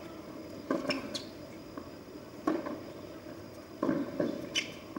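Tennis rally on a hard court: racquets striking the ball and the ball bouncing, a string of sharp knocks every second or so.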